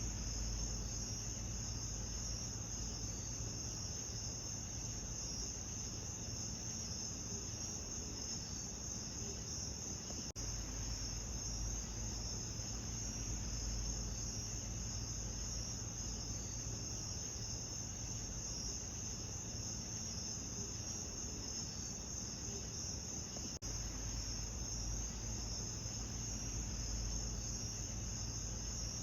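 Crickets chirring in a steady, dense high chorus over a low rumble, with two brief dropouts, about ten seconds in and near the end.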